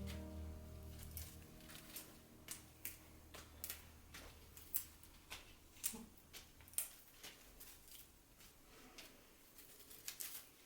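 Irregular light clicks and taps, roughly one or two a second, under soft background music that fades out in the first few seconds.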